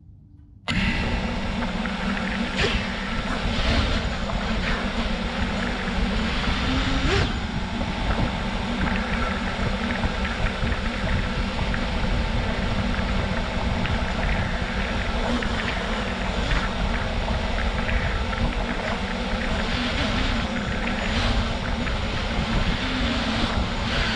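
Five-inch FPV quadcopter's brushless motors (2702, 1950Kv) and propellers buzzing in flight, mixed with wind rush. The sound starts suddenly about a second in and has brief surges now and then as the throttle changes.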